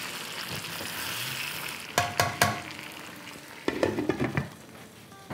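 Chicken pieces and green chillies sizzling as they shallow-fry in oil in a wok, stirred with a spatula. About two seconds in there are a few ringing clinks, and around four seconds a short clatter as a glass lid is set on the pan, after which the sizzle is quieter.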